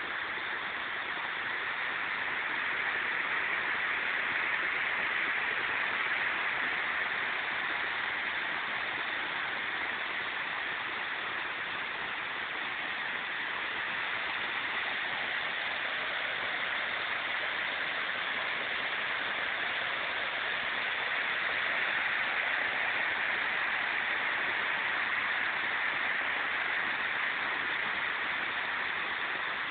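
Waterfall: a steady rush of falling water that swells slightly now and then.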